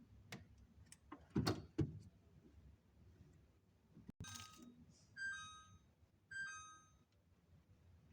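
Containers being handled and set down while a refrigerator is stocked. There are a few knocks, the loudest pair about a second and a half in, then a click, then two short ringing clinks about a second apart.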